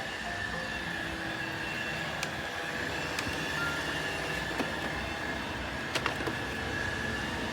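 Roomba robot vacuum running: a steady motor hum with a thin, high whine held throughout, and a few light clicks along the way.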